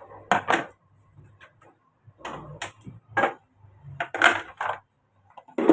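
Sharp clicks and metal knocks, about eight of them at uneven intervals, some in pairs, the loudest near the end: a kadhai being set on a gas stove's metal grate and the burner being lit to heat oil.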